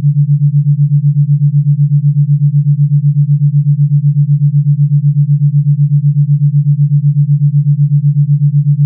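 Synthesized theta binaural beat: two pure sine tones a few hertz apart, tuned to a planet's frequency. They play together as one steady low hum that pulses about eight times a second.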